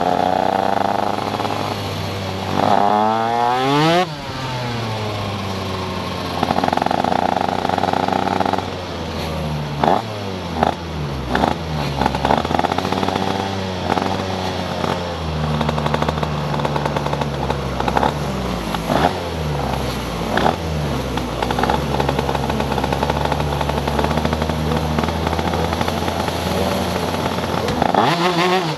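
Stock Honda 125 cc two-stroke shifter kart engine running hard, heard from the kart. Its pitch climbs and then drops suddenly again and again as it is run up through its six gears.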